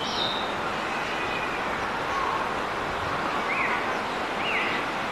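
Steady wind noise on the microphone, with a few short bird chirps: one right at the start and two more about three and a half and four and a half seconds in.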